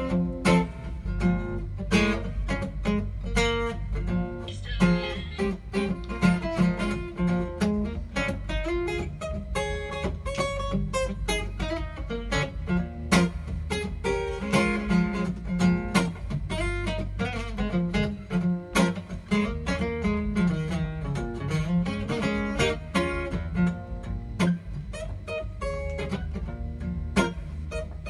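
Acoustic guitar playing live, picked notes mixed with strums in a steady rhythm.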